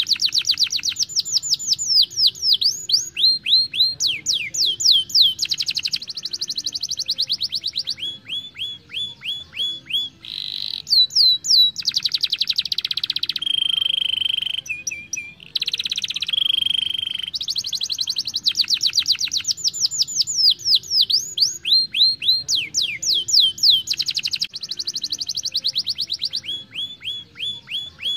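Young domestic canary singing a long rolling song. Each phrase is one note repeated very fast, alternating between runs of quick downward-sweeping notes and lower, even trills, with a couple of short breaks.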